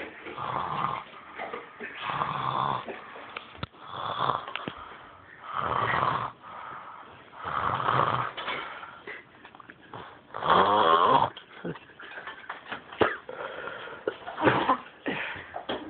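Snoring, one snore about every two seconds, the longest and loudest about eleven seconds in, turning shorter and more broken near the end.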